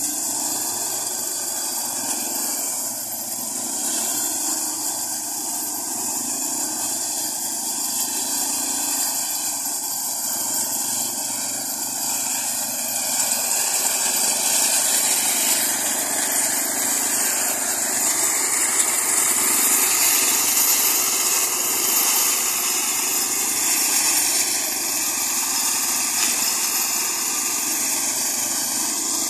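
Engines of a small tracked brush-cutting machine running steadily as it moves forward cutting through ferns. The machine has one engine driving the cutter and a second driving the crawler tracks. The sound gets somewhat louder through the middle stretch.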